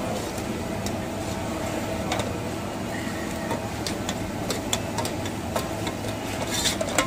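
A metal ladle stirring and scooping milk tea in an aluminium pot, giving scattered clinks and scrapes against the pot over a steady rumbling din. The clinks come thicker near the end.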